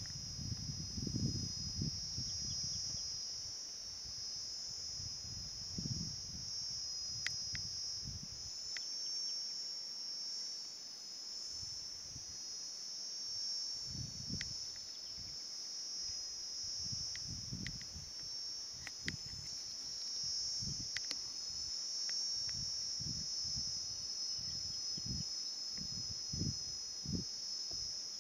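Steady, high-pitched insect chorus droning without a break, with low gusty rumbles coming and going underneath and a few faint ticks.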